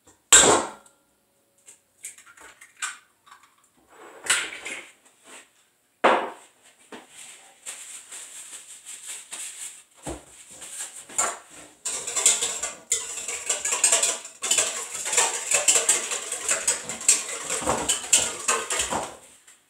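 Eggs being cracked against a stainless steel mixing bowl: a sharp knock just after the start and a few more knocks and clinks over the next several seconds. From about twelve seconds in comes a busy stretch of clattering and scraping in the metal bowl.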